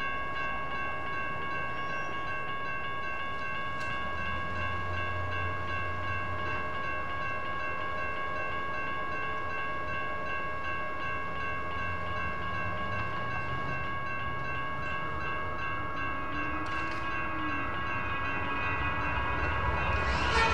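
Railroad crossing warning bells ringing steadily while the gates are down. Near the end a light rail train approaches, its noise rising in level.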